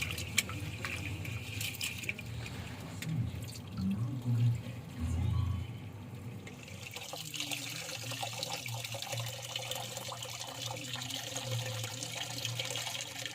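Raw rice being washed in water, with water sloshing and splashing as the grains are rinsed.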